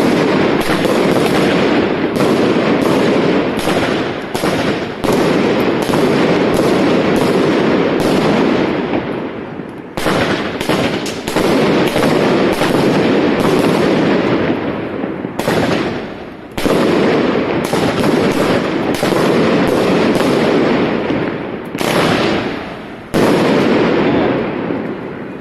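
Consumer fireworks batteries firing: a dense crackle packed with repeated sharp bangs, dipping briefly and restarting abruptly three times.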